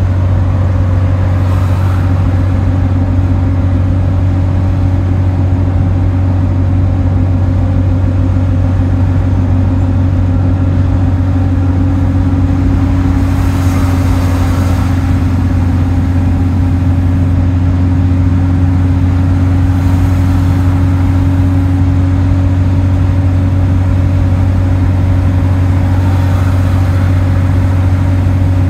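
Single-deck bus driving at a steady speed, heard from inside the passenger saloon: a constant low engine drone over road noise. A brief rush of noise comes about halfway through.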